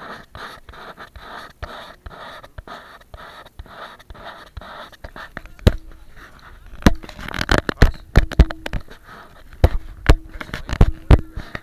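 New Year's fireworks: light rapid crackling, then from about halfway a run of about ten loud, sharp bangs, some coming in quick pairs.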